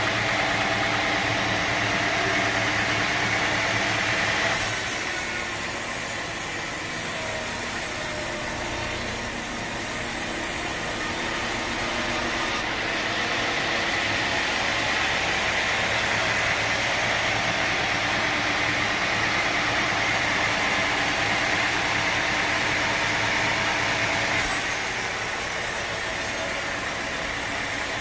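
Sawmill machinery running steadily with an engine-like hum and hiss. The sound changes abruptly about four seconds in, again near the middle, and again near the end.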